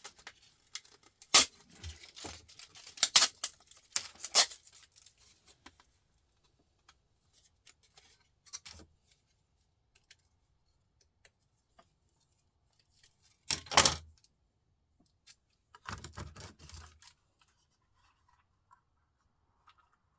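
Small laptop parts being handled and pried apart: a few sharp clicks and clatters in the first few seconds, another loud clatter about two-thirds through, and a short rustling scrape soon after, with quiet gaps between.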